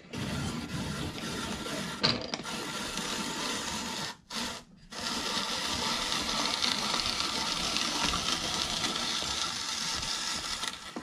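Hand-cranked apple peeler-corer-slicer being turned through an apple: a steady mechanical grinding as the blade pares the skin and the corer advances, with a click about two seconds in and two short breaks in the cranking a little past four seconds.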